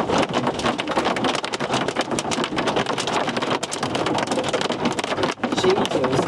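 Hailstones pelting a moving vehicle: a dense, unbroken clatter of many small hits.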